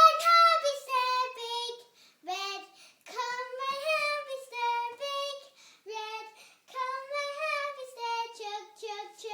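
A child singing a song unaccompanied in a high voice, in short phrases with brief pauses between them.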